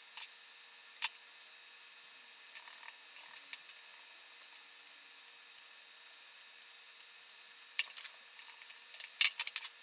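Sparse light clicks and taps from hands handling small laser-cut wooden parts, a servo and screws: one sharp click about a second in and a cluster near the end, over a faint steady hum.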